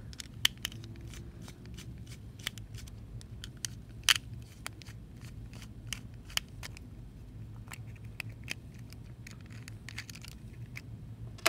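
Small screwdriver turning out the screws in the back of a plastic tracker case: a run of light, irregular clicks and ticks of metal on screw heads and plastic, the sharpest about four seconds in, over a low steady hum.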